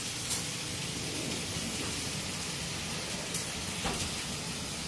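Steady hiss of room tone and recording noise, with a few faint clicks.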